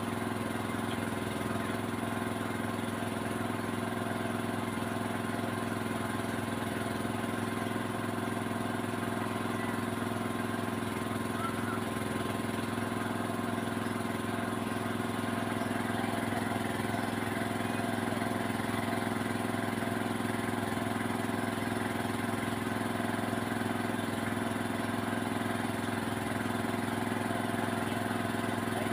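An engine running steadily at constant speed, an even hum that does not change.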